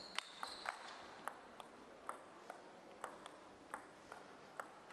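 Table tennis rally: the ball clicking off the players' bats and the table in a string of sharp, short clicks, about two or three a second.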